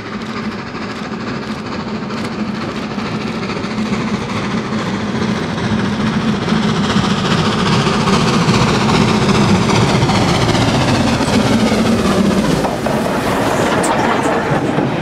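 LNER K4 three-cylinder 2-6-0 steam locomotive working a goods train, its exhaust growing louder as it approaches and passing close by near the end, followed by the wagons rolling past.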